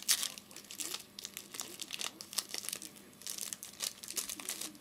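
A football trading-card pack's wrapper crinkling and tearing as it is opened by hand, in quick, irregular crackles.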